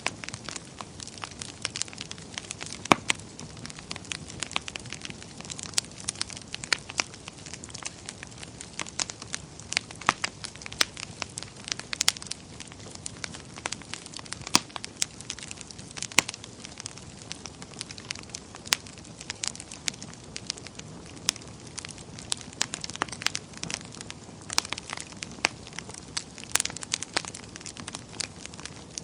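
Wood fire burning in a fireplace: a steady low rush of flames with frequent irregular sharp crackles and pops.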